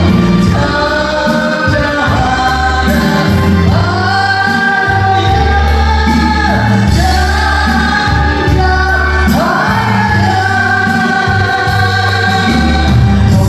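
Christian gospel song sung with instrumental accompaniment. The voice holds long notes that glide between pitches over a steady bass.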